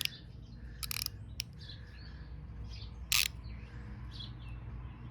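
A few sharp metallic clicks as a socket and ratchet are handled, the loudest about three seconds in, over faint bird chirping.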